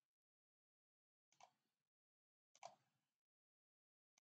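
Near silence, with two faint computer mouse clicks, about a second and a half and two and a half seconds in.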